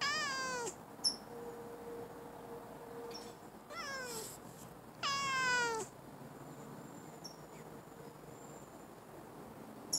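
An orange-and-white domestic cat meows three times, each meow sliding down in pitch, the last one the longest. There is a short sharp click about a second in.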